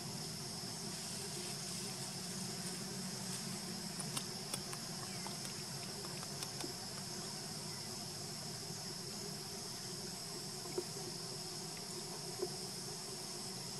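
Steady, unbroken high-pitched drone of an insect chorus, with a low steady hum beneath it and a few faint clicks.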